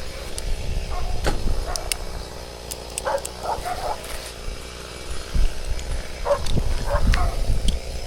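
A dog barking in short bursts, a few barks around the middle and a couple more later, over the low, steady rumble of an idling chainsaw.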